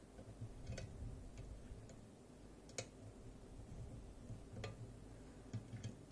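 Faint, irregular metallic ticks and clicks of picking tools working the levers inside a Fichet-Bauche M3B lever lock, with one sharper click about three seconds in.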